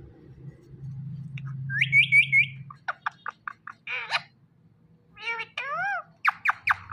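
Indian ringneck parrot calling: a run of four quick rising whistled notes, then a string of short sharp chirps and squawks.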